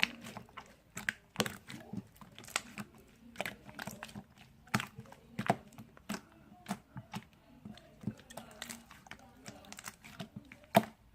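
Clear orange slime being squeezed and pressed by hand, giving irregular sharp clicks and small pops, a few a second.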